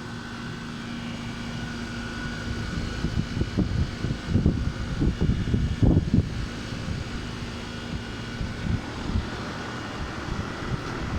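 Trane air conditioners running, a steady fan and compressor hum with a faint whine above it. Low, uneven gusts of wind buffet the microphone from about three to seven seconds in.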